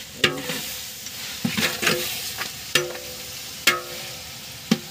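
Onions frying in oil and ghee in a large metal pot, with a steady sizzle, while a long-handled ladle stirs them. The ladle knocks and scrapes against the pot about once a second, each knock leaving a brief metallic ring. This is the onion-browning stage of a chicken biryani base.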